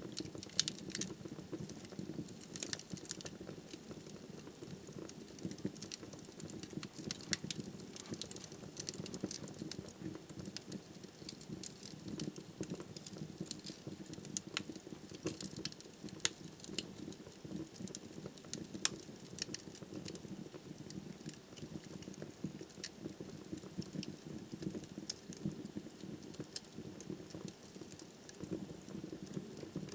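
Wood fire burning in a fireplace: frequent, irregular sharp crackles and pops from the burning firewood over a steady low sound of the flames.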